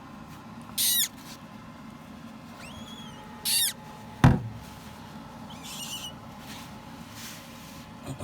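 Parrot chick peeping: two short high squeaks, about a second in and about three and a half seconds in, with a faint thin whistle between them and a fainter chirp near six seconds. A single low thump just after four seconds is the loudest sound.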